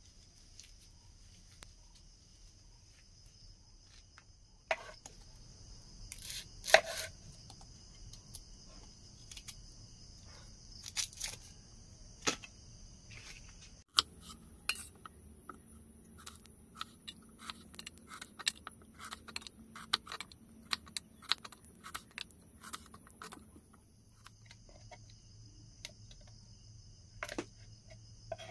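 A kitchen knife cutting an onion on a wooden board: about halfway in, a quick run of small taps of the blade on the wood for about ten seconds, then a few more. Steady high insect sound runs underneath, and the first half holds only scattered knocks and rustling.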